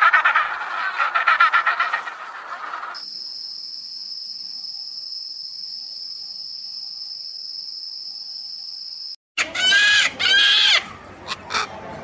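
Animal calls in three parts. First a rapid pulsing, gobbling bird call that fades out after about two seconds, then a steady high buzzing tone, then loud harsh calls in two bursts near the end.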